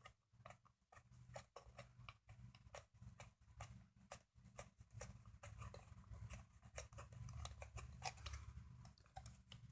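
Faint, scattered clicks and taps of the plastic party light and its metal mounting bracket being handled and angled.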